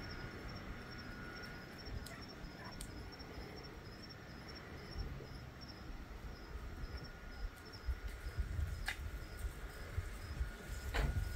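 Insects chirping: a high chirp repeated evenly over and over, with a steady high trill beneath it and a low rumble.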